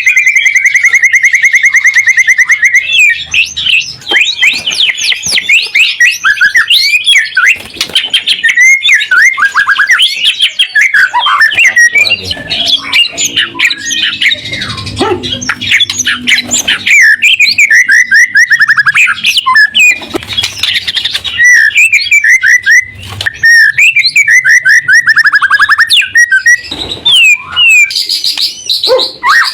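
White-rumped shama (murai batu) singing loudly and without pause: a varied stream of whistles, rapid trills and sweeping notes, opening with a long fast trill. This is the bird in full song, the kind of recording played to other shamas to provoke them into singing back.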